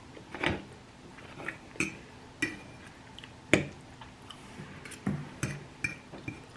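Cutlery clinking and tapping on a plate during a meal: about seven short, separate clinks spread over several seconds, some with a brief ring.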